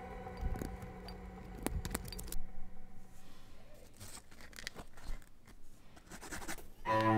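Small scissors snipping a few times at the edge of clear-coated fabric, then soft scraping and rustling as fingers handle and press the stiffened fabric.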